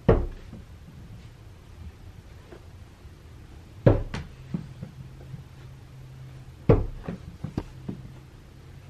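A few dull knocks and thumps: one at the start, then two pairs about four and seven seconds in. A low steady hum sets in about halfway through.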